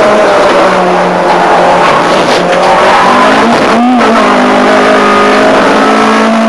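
Ford Fiesta 1.4 Zetec race car's four-cylinder engine running hard at racing speed, heard from inside the cockpit. The engine note drops about a second in and climbs again, then breaks briefly with a short blip just before four seconds in, a gear change, and holds steady after it.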